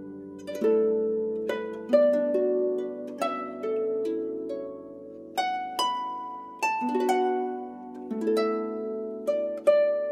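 Background music: a gentle melody of plucked string notes that start sharply and ring away, harp-like.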